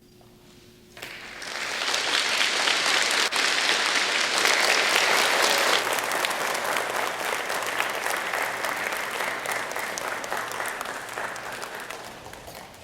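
Audience applause in a large hall: it starts about a second in, swells quickly, holds and then slowly dies away near the end.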